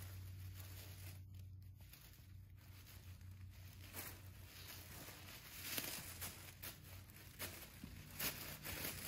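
Tissue paper rustling and crinkling in short, scattered spells as a Shih Tzu noses and paws through it, over a faint steady low hum.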